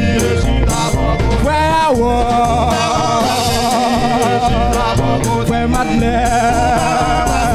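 Live gospel worship music: male voices singing together, with a sung line that wavers in pitch, over a drum kit keeping a steady beat.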